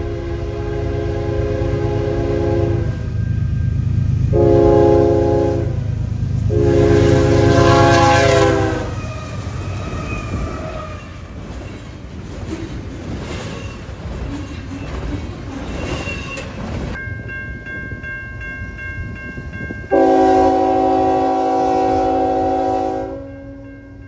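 Diesel freight locomotive's multi-note air horn sounding three blasts (long, short, long) over the rumble of the approaching train, typical of a horn signal for a crossing. Later a level-crossing bell rings and another locomotive horn sounds one long blast of about three seconds.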